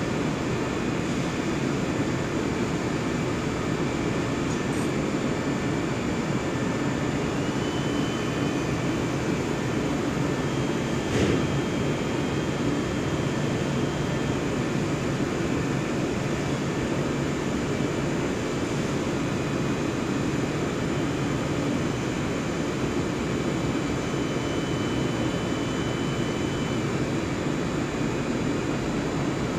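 HDPE blown-film extrusion line running during start-up: a steady machine drone with a few faint high steady tones, and a single short knock about eleven seconds in.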